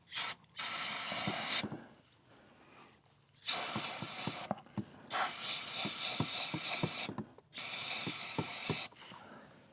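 Aerosol cleaner sprayed into a throttle body in about five hissing bursts, each lasting one to two seconds with short pauses between them, to clean off the dirt and oil deposits.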